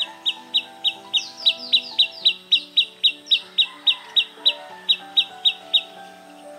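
A bird calling in a fast, even series of short, high chirps, each falling slightly in pitch, about three and a half a second. The chirps stop about a second before the end, over soft background music with long held notes.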